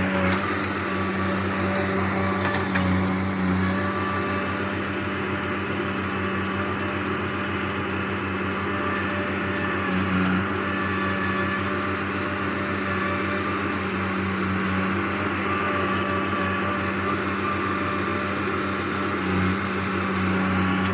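A vehicle engine running steadily at an even speed, heard as a constant drone with small swells in level.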